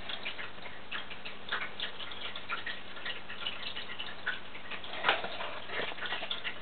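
Fine-tip pen scratching on paper in short, irregular strokes as it traces a round outline, with one louder scratch about five seconds in.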